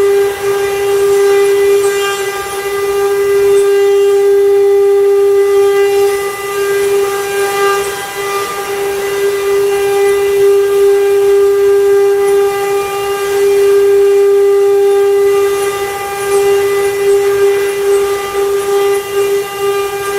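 CNC wood-carving router's spindle running with a steady high-pitched whine and fainter overtones, its loudness dipping slightly now and then as it cuts.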